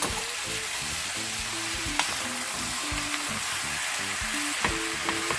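Beef, onions and spices sizzling steadily in hot oil in a frying pan, with a few sharp ticks.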